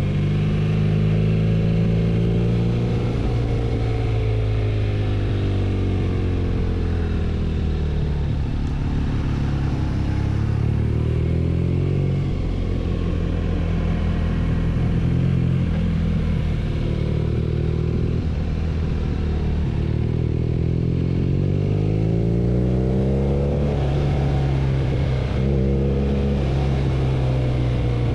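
BMW R nineT's 1170 cc air/oil-cooled boxer twin running under way, its engine note rising and falling several times as the revs climb and drop.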